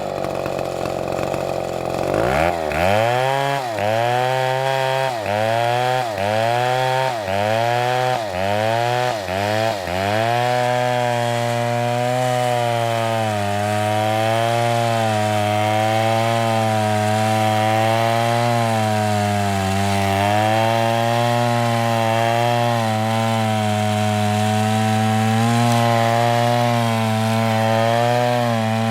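Two-stroke chainsaw cutting wood. It runs high at first, then its pitch dips and recovers about once a second for several strokes, then it settles into a steady, lower pitch, labouring under load through a long cut.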